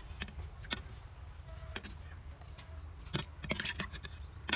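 Slotted metal skimmer clinking and scraping against an aluminium kadhai while boiled chicken pieces are scooped out of the water onto a plate: several sharp, scattered clicks and taps over a low steady hum.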